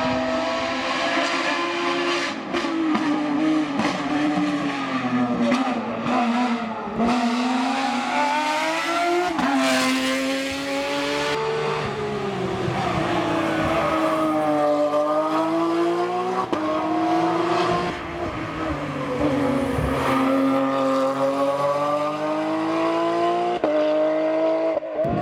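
Hillclimb racing car's engine at high revs, its pitch repeatedly climbing and falling back as it accelerates, shifts gear and brakes for corners.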